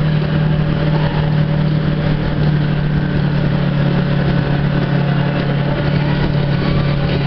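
Jet ski engine running steadily, a constant drone that holds one unchanging pitch.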